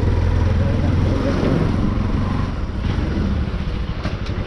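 Motorcycle engine running as the bike is ridden slowly. Its note eases lower near the end, with a few light clicks.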